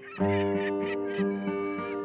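Background instrumental music: sustained plucked-string chords, with new notes struck every half second or so and a wavering higher melody line above them.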